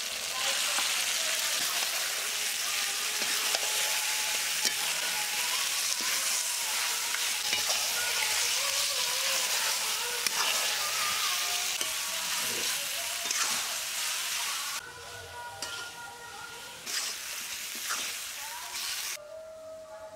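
Mutton pieces sizzling as they fry in hot mustard oil and spice paste in a metal kadai, stirred as they cook. The sizzle holds steady, then thins and breaks up about three-quarters of the way through.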